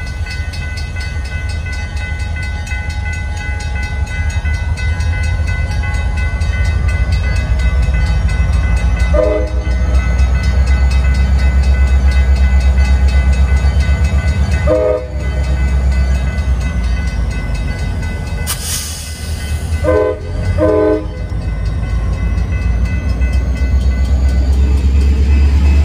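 A CSX diesel locomotive, number 6207 leading, approaches and rolls past, its engine rumbling louder as it nears. It sounds short horn blasts: one about a third of the way in, one about halfway, and two close together past two-thirds. A brief hiss comes just before the last pair.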